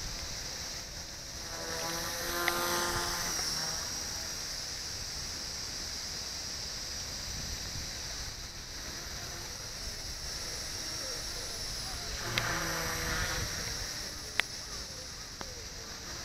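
Blade nano CPx micro collective-pitch RC helicopter flying: a steady high-pitched whine, with a louder humming tone swelling about two seconds in and again about twelve seconds in. Wind noise rumbles on the microphone underneath.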